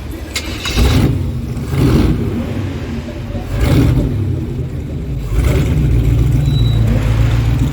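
Classic muscle car engine breathing through an aftermarket exhaust muffler, revved in three short blips and then held at a higher, steady speed from a little past halfway.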